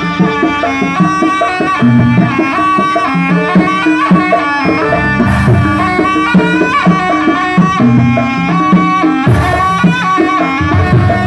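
Jaranan buto dance accompaniment from Banyuwangi: hand-drum (kendang) patterns under a loud, busy melodic line of traditional ensemble instruments, played without a break.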